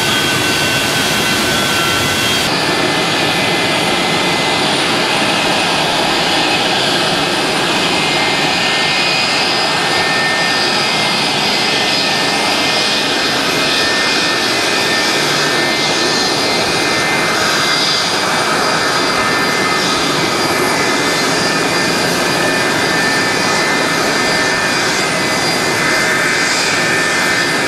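Jet airliner engines whining steadily at taxi power, with several steady high tones over a rushing noise. After a cut about two seconds in, the sound is a McDonnell Douglas MD-80's tail-mounted Pratt & Whitney JT8D engines as the jet taxis past.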